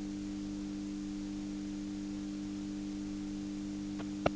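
Steady electrical hum with a faint high whine and hiss on an old videotape recording, broken by a couple of short crackles about four seconds in as the tape drops out.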